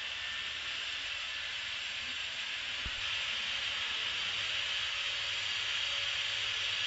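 Steady high-pitched hiss with no distinct events, over a faint low hum, and one soft low thump about three seconds in.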